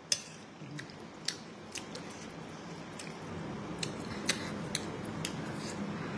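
A person chewing a mouthful of soft noodles and soup close to the microphone: wet mouth smacks with sharp clicks about every half second.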